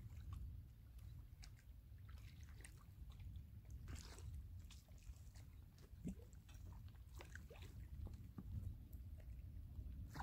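Faint, steady wind rumble on the microphone, with scattered small clicks and crackles and a brief louder rush of noise near the end.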